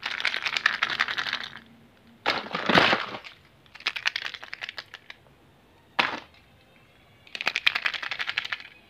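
Plastic surprise eggs being handled and shifted in a pile, clicking and clattering against each other in several bursts of rapid clicks with short pauses between, and a single knock about six seconds in.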